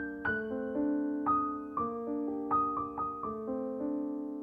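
Background music: a slow keyboard melody of piano-like notes, struck two or three times a second and each dying away over held lower notes.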